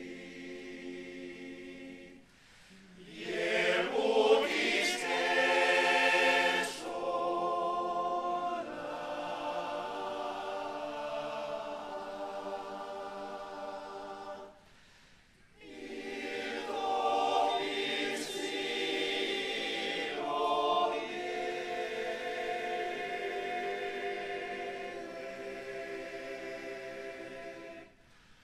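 Men's choir singing a cappella in several-part harmony, in phrases broken by short pauses about two seconds in and about halfway through; the fullest, loudest passage comes around four to seven seconds in.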